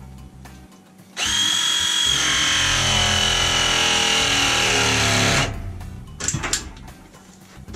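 A power drill runs for about four seconds, starting abruptly about a second in. Its high whine sags slightly in pitch before it stops. Light knocks come before and after.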